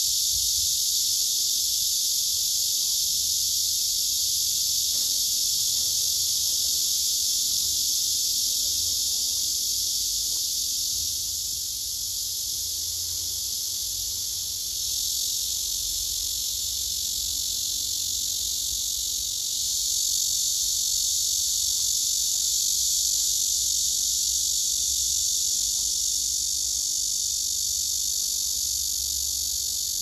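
Black cicadas (Cryptotympana atrata) singing in chorus: a loud, continuous high-pitched buzz that eases a little in the middle and swells again later.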